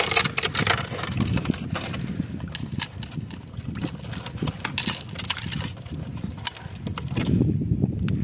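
Wind rumbling on the microphone, stronger near the end, with scattered clicks and short scrapes from hands working among stones and a plastic bottle.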